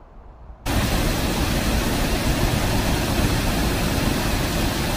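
Water pouring over canal lock gates and splashing into the lock chamber below: a loud, steady rush that starts abruptly about half a second in.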